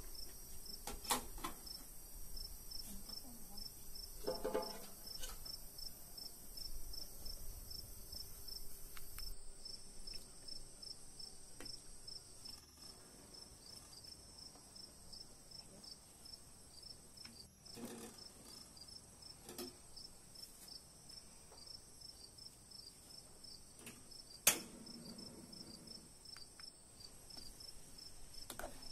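Insects chirping steadily in a high, even pulse, with a few sharp clicks over it, the loudest near the end.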